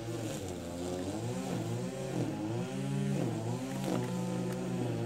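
A small engine running with its speed and pitch wavering up and down about once a second, with a few light clicks over it.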